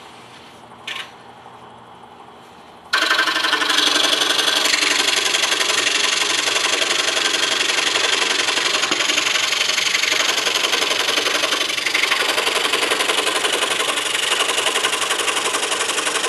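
DeWalt scroll saw starting abruptly about three seconds in after a single click, then running steadily with the fast, even stroke of its reciprocating blade as it cuts through a stack of three layers of wood.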